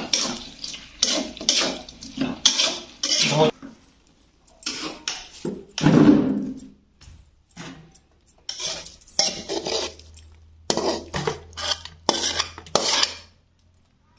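Steel spoon scraping and clinking against a steel kadai and a steel plate as cooked chicken curry is stirred and scooped out, in irregular bursts of strokes, with one heavier knock of the pan about six seconds in.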